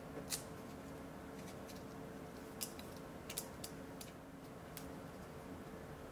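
A handful of small, sharp clicks and taps, with two or three close together about halfway through, from a stainless steel iGaging digital caliper being handled. A faint steady hum lies under them.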